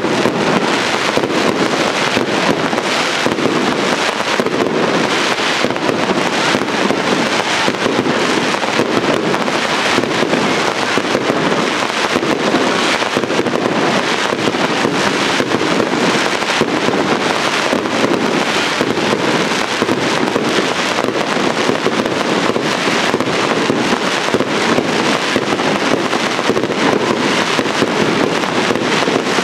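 Dense aerial fireworks barrage: countless rapid, overlapping bangs and reports, continuous and unbroken.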